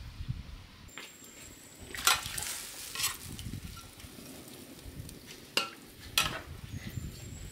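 Fish steaks simmering in a tomato broth in a wok over a wood fire, with a steady sizzling hiss. A ladle stirs and scrapes against the wok about four times, loudest about two seconds in.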